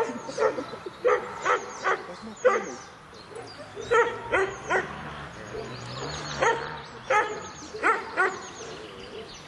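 A dog barking in short, high-pitched yaps, about a dozen of them in quick clusters of two or three.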